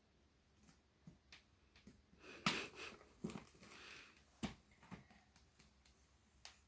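Plastic packaging on an L.O.L. Surprise toy canister being picked and torn open by hand: faint scattered clicks and crinkles, with a louder rustling burst about two and a half seconds in and another sharp crackle about four and a half seconds in.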